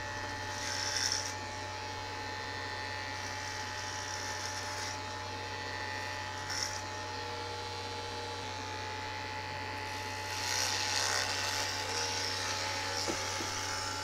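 Corded electric hair clippers running with a steady buzzing hum while shaving a head, the blades rasping through hair about a second in, briefly again midway, and for a longer pass from about ten to twelve seconds.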